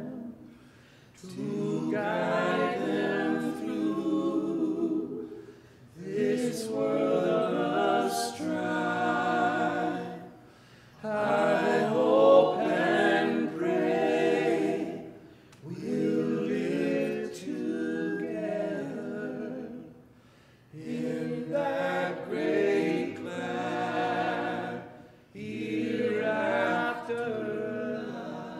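A small group of men and women singing together, apparently unaccompanied, in sustained phrases about four seconds long with short breaks between them.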